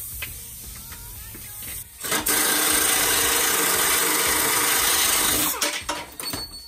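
Pneumatic air ratchet on a long extension running steadily for about three seconds, starting about two seconds in, as it turns out a bumper bolt. Then a few sharp clicks and knocks as the tool stops and is moved.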